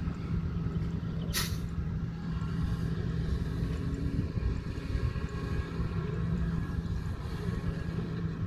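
Kobelco SK140 excavator's diesel engine running steadily as it digs and swings loads of soil to a dump truck, with a short, sharp hiss about a second and a half in.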